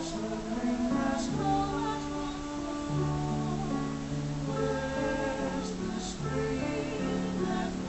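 Mixed choir singing a slow song in parts, the voices holding long sustained notes.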